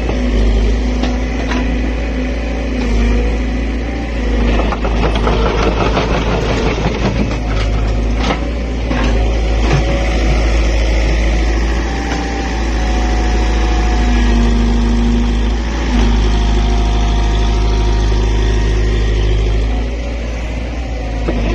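Excavator's diesel engine running steadily, its pitch shifting now and then as the machine works, with a few sharp knocks.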